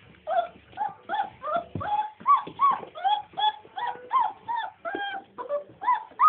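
A four-week-old Scottish Deerhound puppy whining and yelping in a steady run of short cries, about three a second, each rising and falling in pitch.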